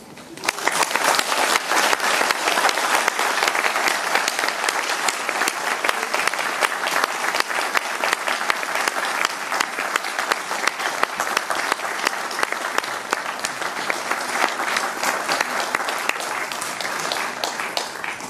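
Audience applauding: a sustained round of clapping that starts suddenly and holds steady, easing a little near the end.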